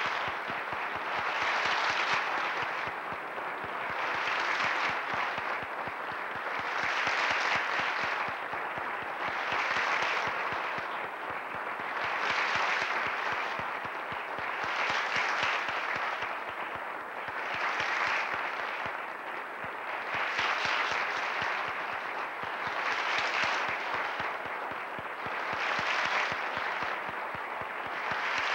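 Theatre audience applauding, a dense clatter of many hands clapping that swells and eases every two or three seconds.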